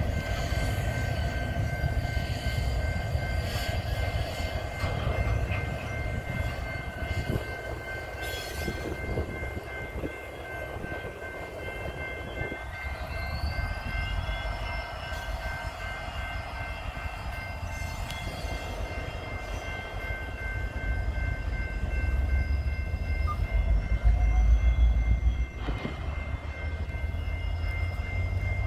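BNSF GP60M-3 diesel locomotive running as it slowly moves a cut of cement hoppers: a steady low engine rumble that swells louder about three quarters of the way through. Two steady high tones ring throughout, and a whine rises in pitch near the middle.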